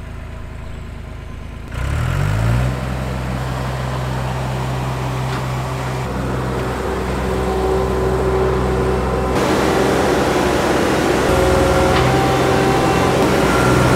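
John Deere 250 skid steer's diesel engine running. About two seconds in it speeds up with a quick rise in pitch, then holds a steady higher speed as the machine is driven.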